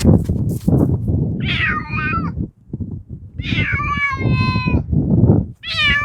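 A cat meowing: three long meows, each sliding down in pitch at the start and then holding, the last one starting near the end, over constant low rustling noise.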